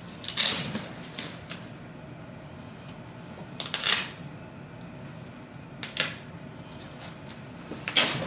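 Scattered clicks, knocks and rustles from a baby play yard's parts and packaging being handled, with the loudest about half a second in, around four seconds, around six seconds and near the end.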